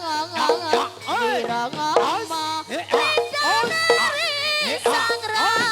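Traditional Javanese jaranan dance accompaniment music: an ornamented melody line sliding up and down in pitch over a steady repeating low pulse.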